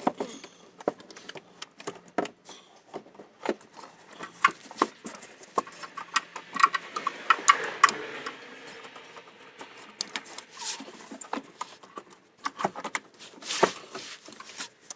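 Irregular plastic clicks, knocks and scraping as a new EVAP charcoal canister is pushed and worked into its mount under the car by hand, with a stretch of rubbing about halfway through.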